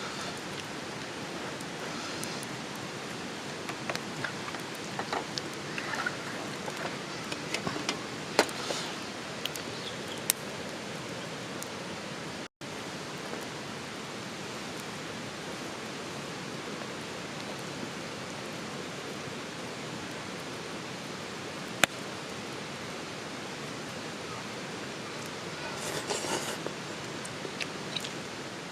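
Steady rushing ambient noise with scattered sharp clicks and pops; the sound cuts out for an instant about twelve seconds in.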